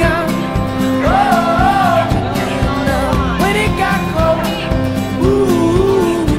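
Background music: a song with a voice singing long, bending notes over a steady instrumental accompaniment.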